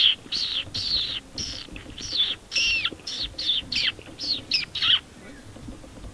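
Fox whistle blown in a quick run of short squealing notes, about three a second, many falling in pitch, a call meant to draw a fox in; the calling stops about five seconds in.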